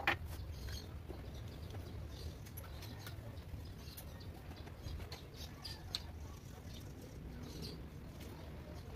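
One knock right at the start: the last tap of a hammer driving a piston through a ring compressor into the Isuzu 6BG1 cylinder bore. After it comes a low, steady background hum with faint, scattered short chirps and clicks.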